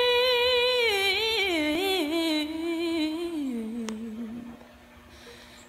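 Background music: a slow, wordless melody carried by one voice-like line, which holds a high note and then slides down in wavering steps to a note about an octave lower over a faint steady drone. It fades out near the end.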